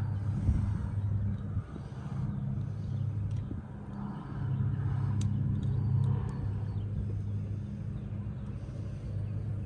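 A vehicle engine idling with a steady low hum that swells a little about halfway through, with a few light clicks.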